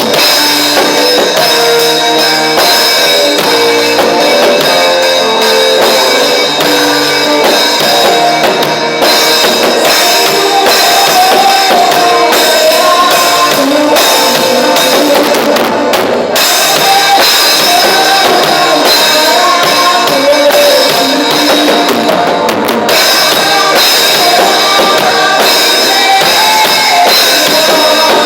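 Instrumental worship music with a drum kit playing a steady beat under a moving melody, loud and continuous.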